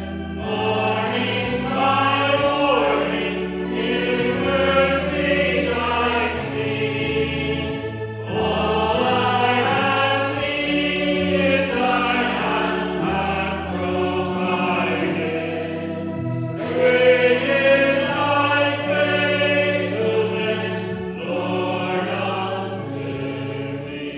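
Church congregation singing a hymn together in unison and harmony, backed by held instrumental chords. The last line dies away near the end.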